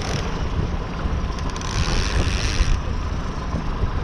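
Wind buffeting the microphone on a trolling boat, with choppy water hissing past the hull and the outboard motor running under it. A stretch of louder hiss ends abruptly about three seconds in.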